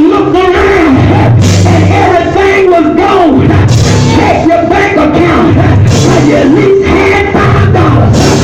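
Loud live church music with bass notes, percussion and a wavering melody line, with voices singing along.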